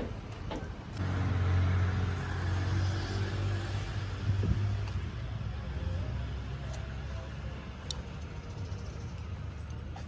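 A bus engine running close by: it comes up about a second in, is loudest for a few seconds, then slowly fades away.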